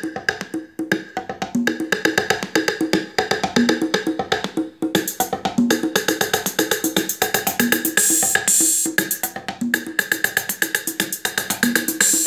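Percussive instrumental music playing from Yamaha loudspeakers driven by a Philips FR 752 receiver: quick, dry, woodblock-like hits over a steady beat. A cymbal-like hiss comes in about eight seconds in and again near the end.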